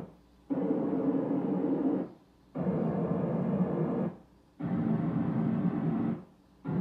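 Pioneer VSX-832 receiver's MCACC auto-calibration test signal played through Polk Audio surround speakers: repeated spells of hissy test noise, each about a second and a half long with half-second gaps, as the receiver measures the speakers one after another.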